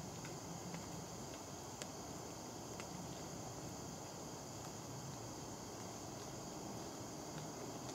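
Steady, faint chorus of insects in the background, with a few faint ticks.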